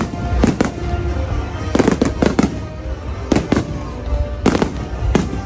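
Fireworks going off in a string of sharp bangs, about a dozen in all, many in quick pairs, over music playing.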